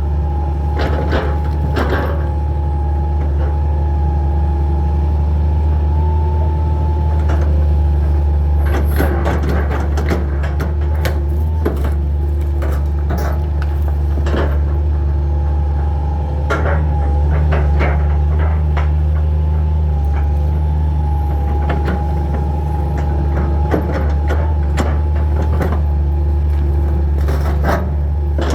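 Hitachi 225 excavator's diesel engine running steadily under load with a steady whine, while repeated knocks and cracks come from wood and debris being handled, in clusters around the middle.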